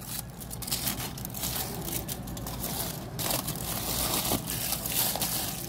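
Aluminium foil crinkling and crackling as a hand pulls it back off a platter, in a steady irregular run of crackles.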